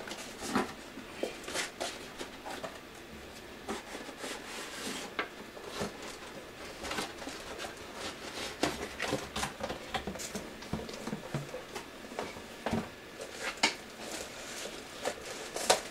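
Packaging being handled during the unboxing of a computer power supply: irregular crinkles, rustles and light knocks as its cables and parts are taken out of the box.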